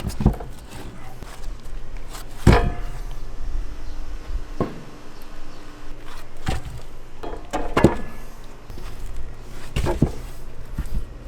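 A series of sharp knocks and thuds, about six, spaced irregularly one to two seconds apart, over a low steady hum.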